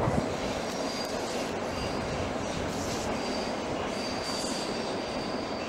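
A train rolling on yard track: a steady rolling noise with a thin, high wheel squeal that comes and goes several times.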